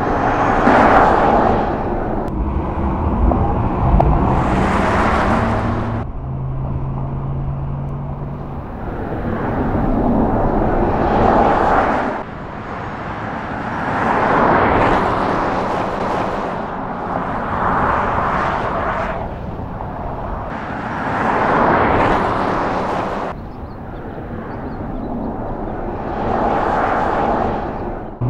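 Porsche Taycan Turbo electric sports car driving past again and again: a rush of tyre and wind noise that swells and fades with each pass, about nine passes, some cut off abruptly.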